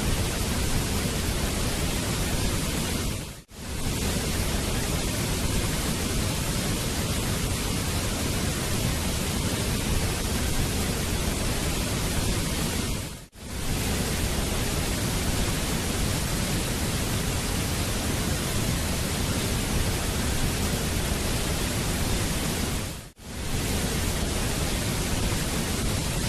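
Waterfall rushing, a steady even noise, dropping out briefly three times about ten seconds apart.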